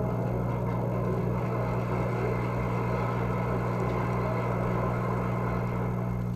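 Audience applauding steadily, over a steady mains hum in the old recording.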